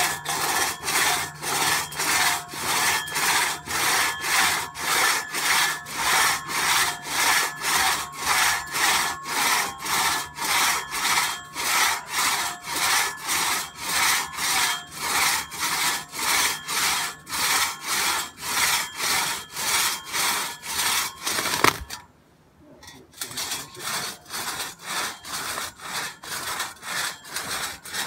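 Two-person crosscut saw cutting through a log, its teeth rasping through the wood in an even rhythm of about two strokes a second as the sawyers pull it back and forth. About three-quarters of the way through there is a sharp crack and the strokes drop suddenly to a quieter level but keep their rhythm.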